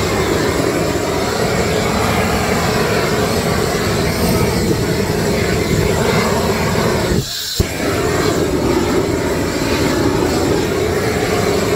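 Hand-held gas torch burning at full flame over shellfish on a grill, a loud, steady rush of noise. It drops out briefly about seven seconds in, with a single sharp click as it comes back.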